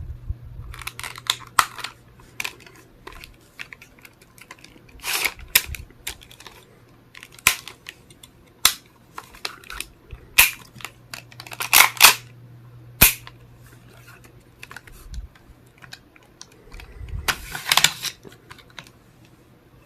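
Tokyo Marui MP7A1 gas blowback airsoft gun being handled and taken apart: sharp plastic and metal clicks and clacks at irregular intervals, some in quick clusters, as parts are worked, slid and snapped.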